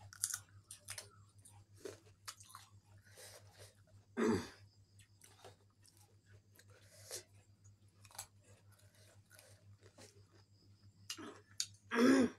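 A person chewing food close to the microphone, with many small wet mouth clicks and two louder mouth sounds, one about four seconds in and one near the end, over a faint steady hum.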